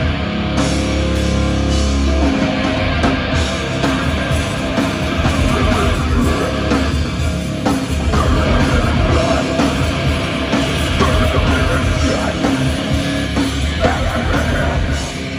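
Death metal band playing live on stage: distorted electric guitars and a drum kit, loud and dense without a break.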